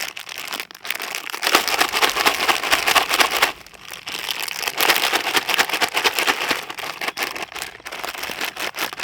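A plastic salad-kit bag crinkling and crackling as it is handled, in two loud bouts with a short lull about three and a half seconds in.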